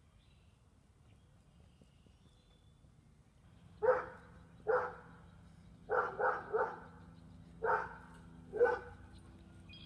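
A dog barking: seven short barks starting about four seconds in, three of them in quick succession in the middle.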